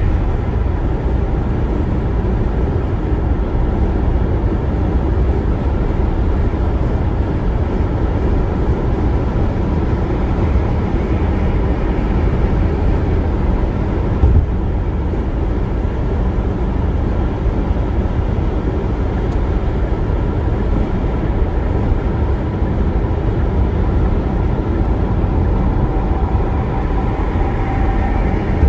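Steady road and tyre noise inside a car cruising on an expressway, a low rumble that holds level throughout. A single short knock comes about halfway through.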